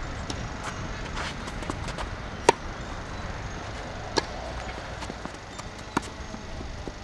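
Tennis ball struck by rackets in a rally: three sharp hits roughly one and a half to two seconds apart, the first of them about two and a half seconds in and the loudest, with fainter knocks of the ball and shoes on the court in between.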